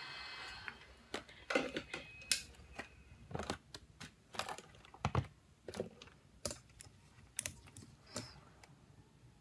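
Hot-air rework gun's airflow hiss cutting off about half a second in, then a run of irregular clicks and knocks from hand tools being set down and multimeter test leads being picked up. One knock a little past halfway has a dull thump.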